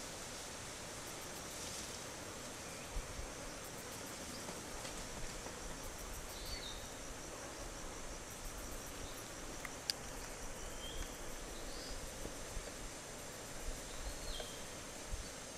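Steady high-pitched insect buzzing, with a few short high chirps scattered through it.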